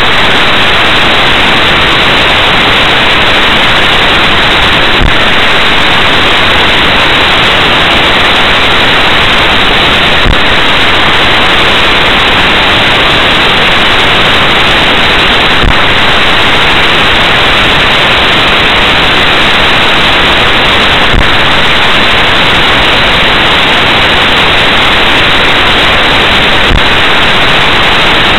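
Loud, steady static hiss from a dashboard recorder's audio, with no other sound rising above it. A faint click comes about every five and a half seconds, five times in all.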